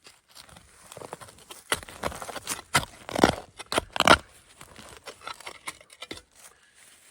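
Rustling and scraping through dirt and debris at a buried brick spot, with a cluster of sharp scrapes and crackles about two to four seconds in.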